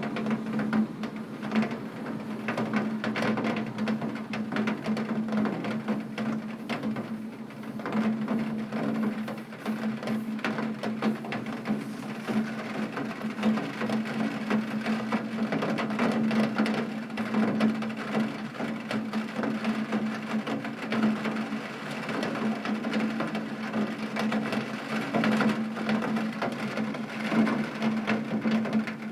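Heavy rain pattering steadily on a window pane, a dense stream of small drop impacts, with a steady low hum underneath.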